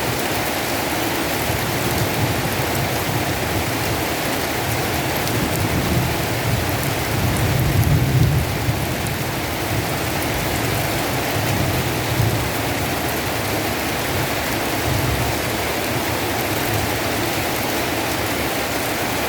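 Heavy rain falling steadily, with low rumbles that swell now and then, the strongest about eight seconds in.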